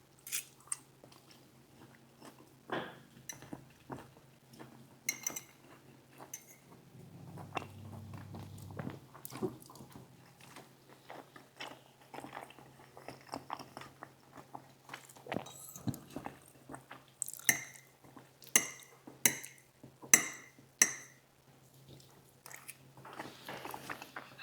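Close-miked eating: a person chewing and biting food, with repeated clicks and clinks of utensils against a dish, and a run of sharper, ringing clinks about two-thirds of the way through.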